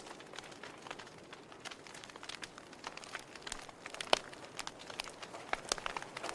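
Fire crackling in a fireplace: irregular sharp pops and snaps over a soft hiss, with one louder pop about four seconds in.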